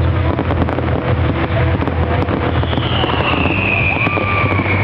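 Fireworks finale: many shells and rockets going off at once in a rapid, continuous crackle of bangs over a steady low rumble, with a long whistle falling in pitch from about halfway through.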